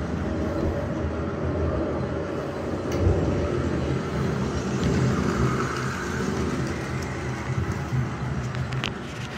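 Small electric model train running on its track through the village display, a steady rumbling whir, with a short click about three seconds in.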